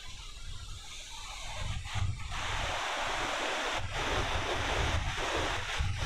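Ocean surf on the beach: a wave's hiss swells about two seconds in and carries on. Wind rumbles on the microphone underneath.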